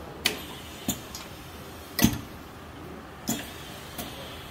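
Two-colour pad printing machine working, its pad heads and ink cups moving with a series of sharp, irregular mechanical clacks, the loudest about two seconds in.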